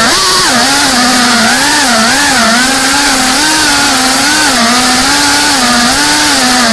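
FPV quadcopter's brushless motors and propellers whining loudly from the onboard camera, the pitch wavering up and down about twice a second as the throttle shifts.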